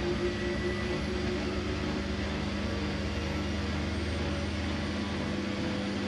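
Siemens Siwamat IQ 716 front-loading washing machine running with its drum spinning at speed: a steady motor hum.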